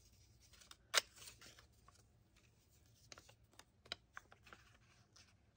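Faint handling of a small paper card being folded and set on a journal page: soft paper clicks and taps, the sharpest about a second in and a few more near the end.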